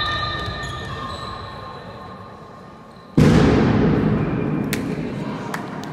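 A steady pitched tone fading out, then about three seconds in a sudden loud bang that slowly dies away with a long echo.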